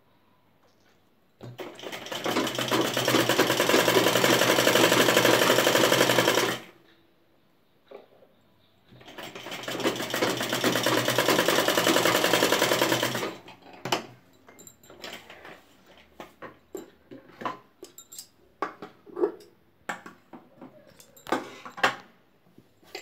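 Sewing machine stitching a narrow folded hem on cotton mask fabric in two runs of about five and four seconds, each speeding up as it starts. Short clicks and fabric handling follow in the last part.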